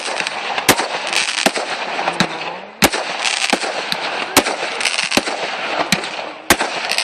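Fireworks display: about seven sharp bangs of bursting shells at irregular intervals over a continuous crackle.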